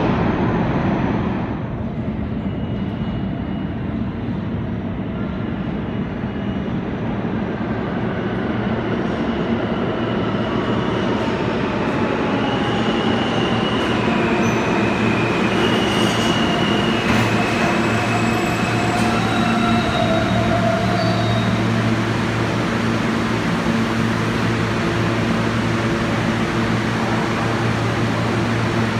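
New York City subway train pulling into the station on the far track, with a steady rumble of wheels on rail. Several short high wheel squeals come midway as it slows. A steady low electric hum from the train grows in the second half.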